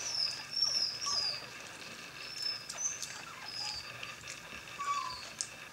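Newborn Morkie puppies squeaking: a string of short, high-pitched squeaks and chirps, some sliding down in pitch, coming every half second or so, with a few faint clicks.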